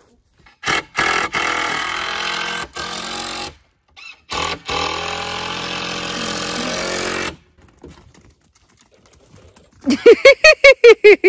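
Cordless drill running in spurts with brief stops, driving screws into the 2x4 rafters of a wooden roof, for about six seconds from about a second in. Near the end, a rapid run of about eight short, loud squeals.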